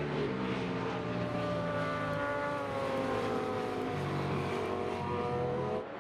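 Superbike racing motorcycle engine running hard, its pitch drifting slowly down over a few seconds. The level drops suddenly near the end.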